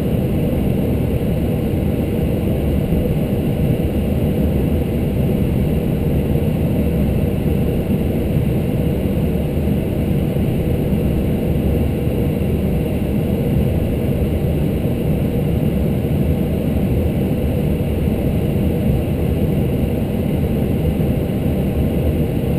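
Cockpit noise of an Airbus A319 taxiing: a steady low rumble from the engines and airframe, with a faint whine above it.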